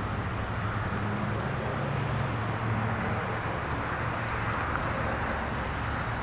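Steady outdoor background noise with a low, even engine-like hum, and a few short, faint high chirps scattered through it.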